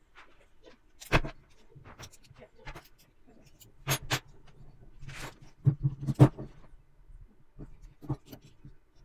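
Small metal construction-kit parts (perforated strips, nuts and bolts) clicking and clinking as they are picked up and fitted together on a wooden table, in scattered single clicks with a quick run of them about six seconds in.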